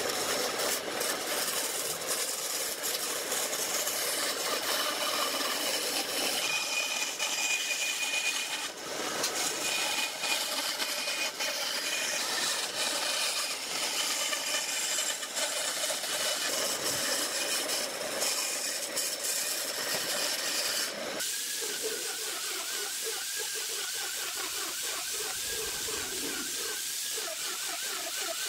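Woodworking power tool running: a steady, hiss-like noise with faint whining tones, which changes abruptly about 21 seconds in to a different steady noise with a wavering tone.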